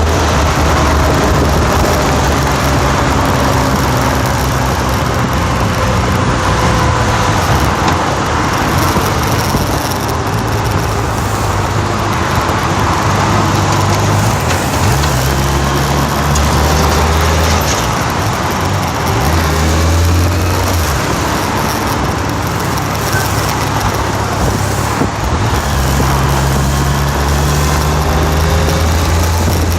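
Motor vehicle engine running continuously, its low hum shifting in pitch and strength every few seconds.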